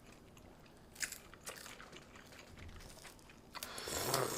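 Close-up eating sounds: a few small clicks and smacks, then a louder crunching bite lasting about a second near the end.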